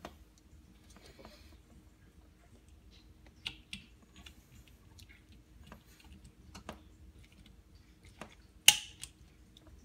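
A CDI torque screwdriver being turned on an AlumiConn connector's lug screw, with faint small clicks, then one sharp pop near the end as the screwdriver breaks over at its set torque, the sign that the screw is tight enough.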